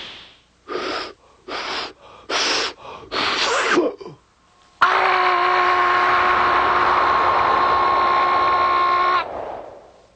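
Cartoon sound effects: four short hissing puffs like gasps, then a long held tone with a hiss that starts suddenly a little before the middle, lasts about four and a half seconds, then stops and dies away.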